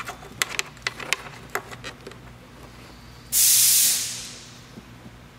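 Small sharp clicks and ticks of a wiring harness and plastic ECU connector being handled. About three seconds in comes a loud, short hiss that fades away over about a second.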